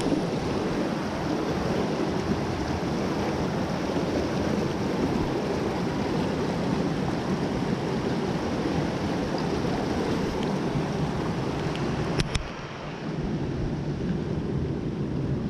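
Steady rushing of creek water, with a single sharp click about twelve seconds in.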